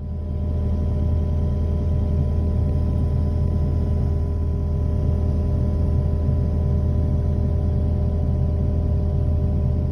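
Kubota digger's diesel engine running steadily at an even speed, a low hum with no revving.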